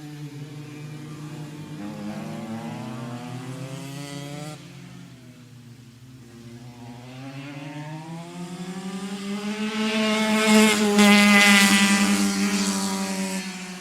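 Racing kart engine running at speed. Its pitch rises, drops sharply about four and a half seconds in as it eases off, then climbs again. It grows loud to a peak around eleven seconds in, then falls in pitch and fades away.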